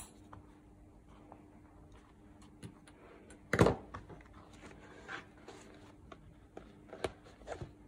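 Small embroidery scissors snipping binding thread once at the start, then paper and book handling on a cutting mat: a knock about three and a half seconds in and a few light taps and rustles as the hardcover journal is closed and turned.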